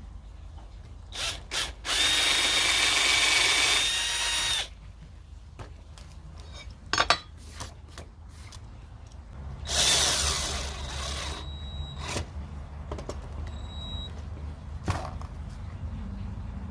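Power drill pre-drilling screw holes for cabinet hinges. It runs in two bursts of a couple of seconds each, with a high motor whine, after two short trigger blips. Small clicks and knocks come between the bursts.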